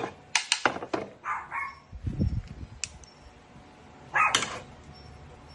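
A dog barking, with one short, loud bark about four seconds in, after a few sharp clicks in the first second.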